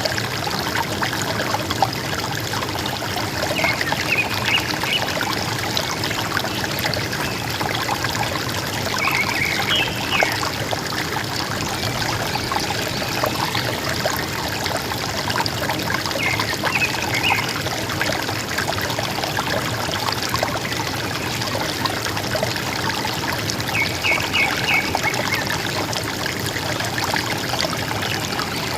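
Steady rush and gurgle of river water. Over it, a forest bird gives a short run of chirps four times, about every seven seconds.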